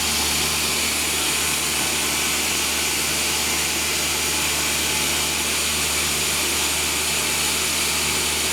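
Sawmill machinery running: a steady mechanical drone with a low hum and a strong hiss, unchanging throughout.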